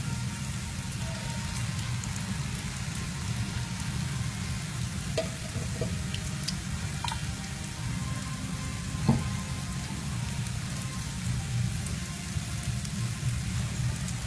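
Shredded sweet potato fritter sizzling steadily in hot oil in a frying pan, with scattered small crackles over a steady low rumble. One sharp click about nine seconds in.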